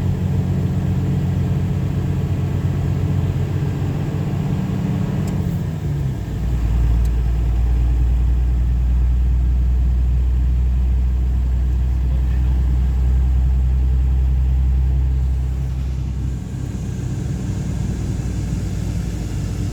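Motor vehicle engine and road noise while driving. The engine note drops about five to six seconds in, then a deep low rumble holds until about sixteen seconds in and eases off.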